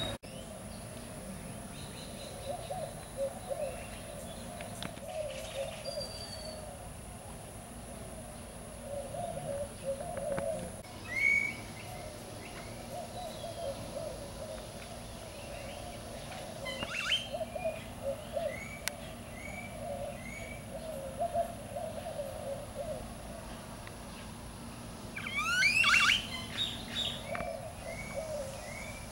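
Birds calling outdoors: short rising chirps about once a second through the middle, and a louder burst of sweeping calls near the end, over steady background bird chatter and a faint high steady tone.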